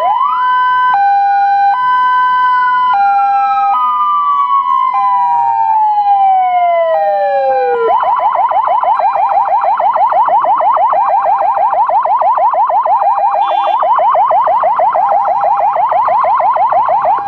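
Two emergency sirens sounding together, from the escort motorcycle and the ambulance. One is a steady hi-lo two-tone. The other winds up, then slowly falls, and about halfway through switches to a fast yelp of several sweeps a second.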